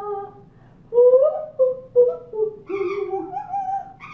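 Wordless singing from a woman and an Amazon parrot: a string of held notes, each a fraction of a second, stepping and sliding up and down in pitch, louder from about a second in.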